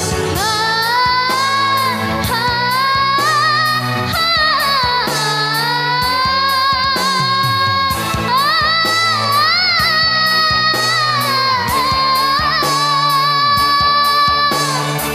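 A young girl singing dangdut in a high voice, holding long notes with ornamented bends and vibrato, over a band accompaniment with a steady beat.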